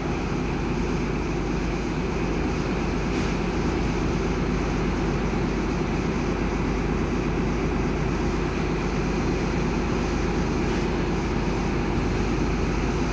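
Diesel engine of a New South Wales XPT power car running loud and steady under power as the train starts to move off.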